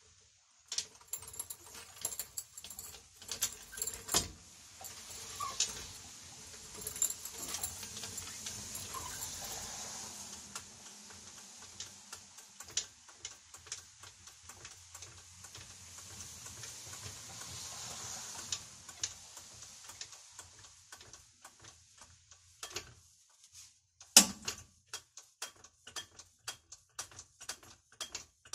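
Hydraulic floor jack being pumped to raise a truck, giving many irregular sharp clicks and metallic knocks with the handle strokes. A single loud metal clank stands out late on.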